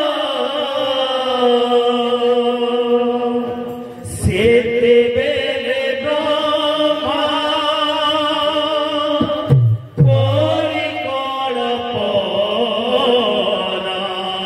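Baithaki kirtan: chanted devotional singing over steady musical accompaniment, the voice holding long wavering notes. There is a short low thump and a brief drop in the sound about nine and a half seconds in.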